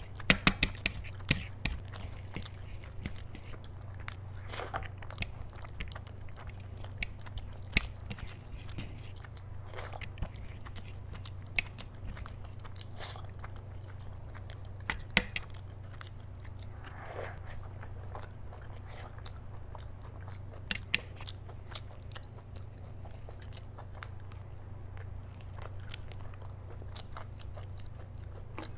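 Close-miked chewing of a mouthful of rice and mutton curry, with wet smacks and sharp mouth clicks scattered throughout, the loudest cluster about half a second in. A low steady hum sits underneath.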